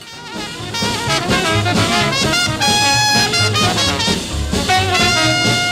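Upbeat swing-style background music with brass instruments over a steady bass beat, getting louder about a second in.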